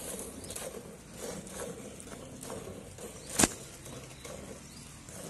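Hand milking: streams of milk squirted alternately from the teats into a pail of frothy milk, in a steady rhythm of two or three squirts a second. One sharp click about two-thirds of the way through.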